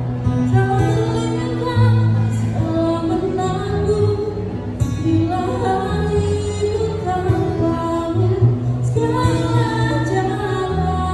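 A woman singing into a microphone over acoustic guitar accompaniment, amplified through a PA speaker, with long held notes.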